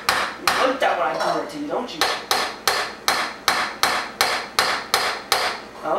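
Claw hammer tapping on a cut-down aluminium can pot to seat a new aluminium ring, a quick even run of about three strikes a second that stops near the end.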